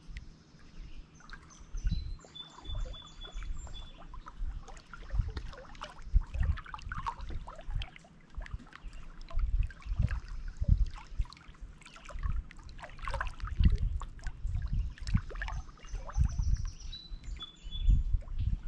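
Small lake waves lapping and splashing against shoreline rocks in irregular surges. A songbird sings the same short, high song twice, once near the start and once near the end.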